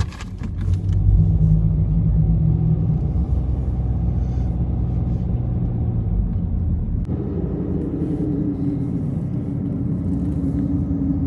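Car driving slowly, heard from inside the cabin: a steady low rumble of engine and road noise that changes tone about seven seconds in.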